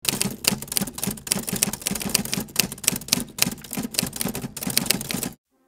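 Typewriter typing: a rapid clatter of key strikes that stops abruptly about five seconds in.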